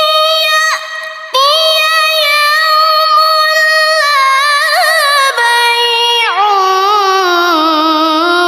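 Melodic Qur'an recitation (tilawah) by a single high voice, holding long sustained notes with ornamented turns. There is a brief breath just after a second in, and the melody steps down to a lower pitch in the second half.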